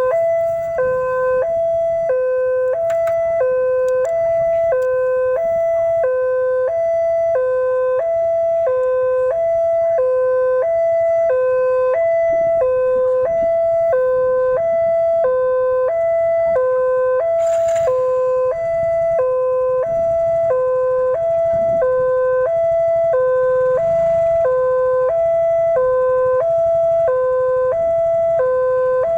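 Electronic railway level-crossing alarm sounding continuously, a two-tone high–low pattern repeating about once a second, the warning that a train is approaching the crossing. A low rumble runs underneath.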